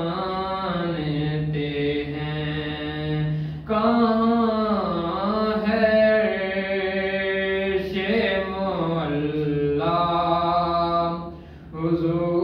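A young man singing a noha, a Shia lament, solo and unaccompanied into a microphone, in long held phrases with bending, ornamented notes. The voice breaks off briefly about four seconds in and again near the end before going on.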